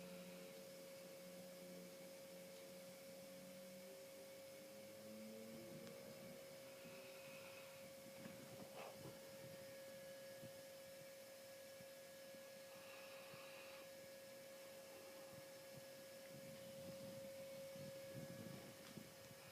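Faint snoring, a few slow breaths several seconds apart, under a steady electrical hum.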